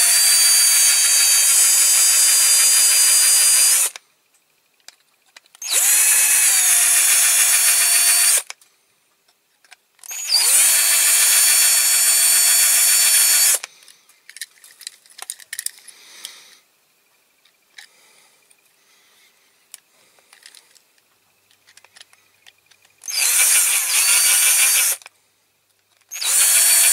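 Electric drill whining in five short runs, each spinning up to a steady pitch, as a small bit drills out the rivets holding a diecast toy car's metal base. Between the runs there are pauses with faint handling clicks, the longest through the middle.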